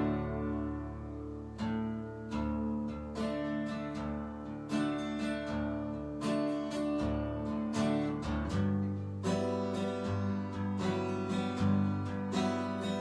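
Acoustic guitar strummed in a steady rhythm, the instrumental opening of a folk tune with no singing, with a chord change about two-thirds of the way through.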